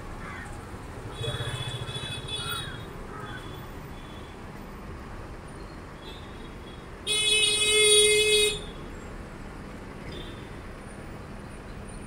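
Busy street traffic with vehicle horns: a honk about a second in, then a loud horn blast of about a second and a half near seven seconds in.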